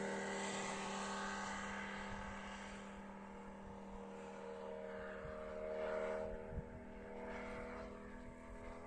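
Valach VM 250-R5 five-cylinder four-stroke radial engine of a large-scale model Fokker D.XXI, running in flight and fading as the plane flies away, its pitch sinking a little just after the pass. It swells and rises in pitch briefly about six seconds in.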